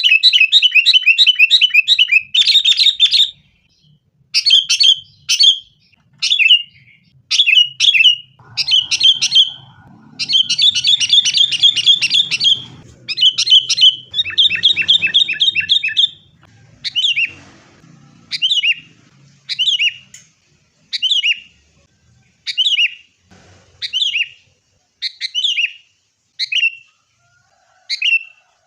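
Sooty-headed bulbuls (kutilang) calling excitedly: dense bursts of rapid chattering notes, then a string of short sharp call notes repeated about once a second through the second half.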